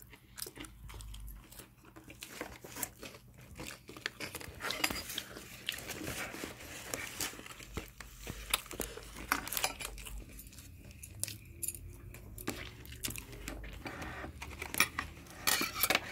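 Paper food wrapping and bag rustling and crinkling, with repeated sharp clicks of metal chopsticks against the food and containers.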